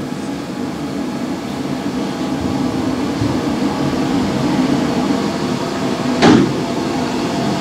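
Steady machine hum. About six seconds in comes a brief slap as a large sheet of layered dough is lifted and flipped on the steel table.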